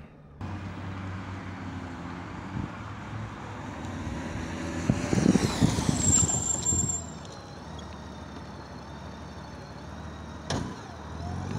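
A Honda Gold Wing touring motorcycle rides up and brakes hard to a stop. The engine and tyre noise builds to its loudest about five to seven seconds in, with a brief high squeal about six seconds in, then settles to a lower steady running sound. A single sharp click comes near the end.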